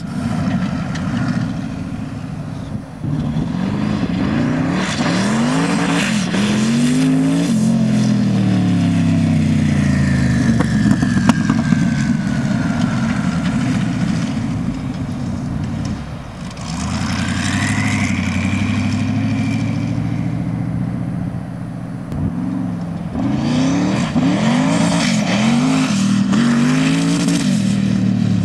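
Sand rail's twin-turbo tall-deck LSX 427 V8 engine revving hard, its pitch climbing and dropping again and again as it works through the gears, with a brief lift-off about halfway through. A high whistle glides down partway through, and another rises a few seconds later.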